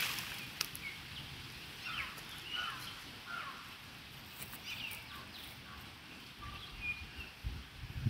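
Scattered short bird chirps and calls, several of them quick pitch glides, with low rumbling on the microphone near the end.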